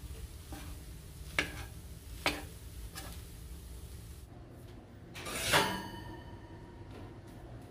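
Slotted spatula stirring turkey-and-potato samosa filling in a stainless steel frying pan, with three sharp clicks of the spatula against the pan about a second apart. About five seconds in comes a louder, brief sliding rush.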